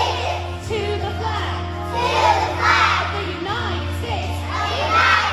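A group of young schoolchildren singing together over a musical accompaniment.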